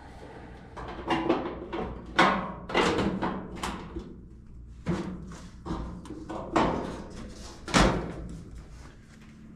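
Irregular series of about eight knocks and thuds, each sharp at the start and dying away quickly.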